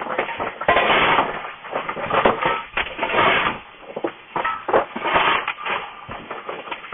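Coal shovel scraping into coal and being swung into a steam locomotive's firebox, irregular crunching and scraping strokes about once a second.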